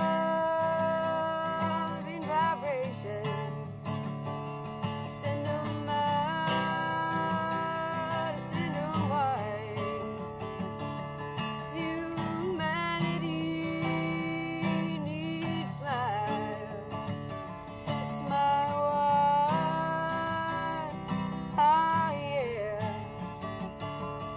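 A woman singing to her own acoustic guitar, holding long notes over steady plucked and strummed chords.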